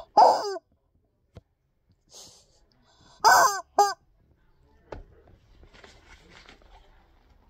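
Rubber chicken squeeze toy squawking twice: once at the start, and again about three seconds in with a short extra squawk. Faint rustling follows.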